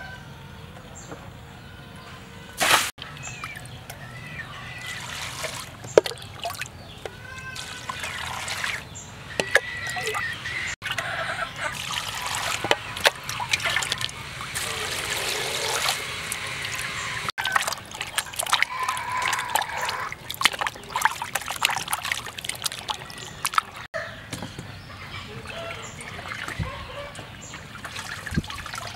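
Water sloshing and trickling as raw meat is rinsed in a basin and drained in a colander, in several short segments. Short high chirps come now and then.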